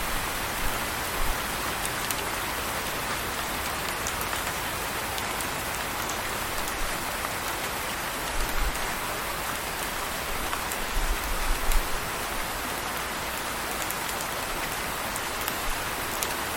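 Steady rain hissing, with scattered sharp drop ticks and a few brief low rumbles.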